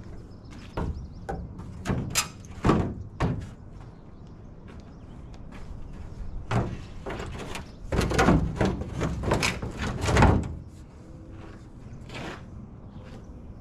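Fiberglass hood of a VW dune buggy knocking and rattling against the fiberglass body as it is set down and worked into place: a few separate knocks in the first three seconds, then a denser run of knocks from about six to ten seconds in.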